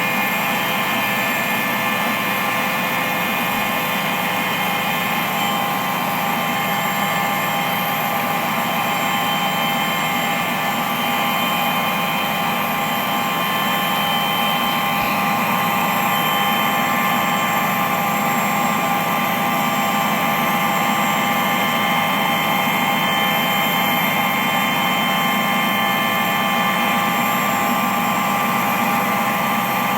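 Steady engine drone with several constant whining tones, unchanging throughout.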